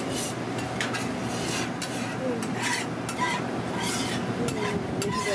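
Hotteok sizzling as they shallow-fry in oil on a flat griddle, with irregular clinks and scrapes of metal utensils.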